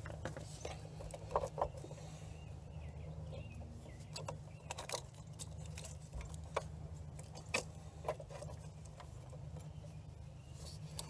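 Scattered faint clicks and taps of metal parts being handled as a motorcycle's rear brake master cylinder and its pushrod are worked loose by hand, over a steady low hum.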